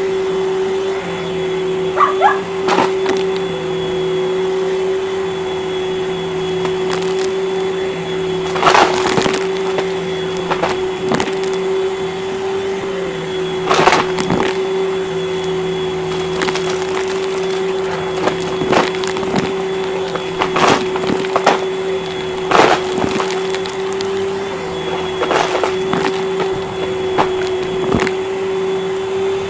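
Upright vacuum cleaner running steadily over carpet with a constant motor hum. Small debris (sequins, beads, bits of wood) clicks and rattles as it is sucked up, at irregular moments every few seconds.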